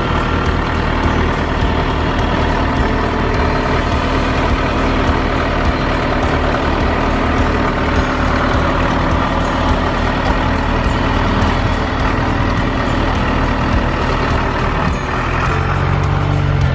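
Truck driving down the road: steady engine and road noise.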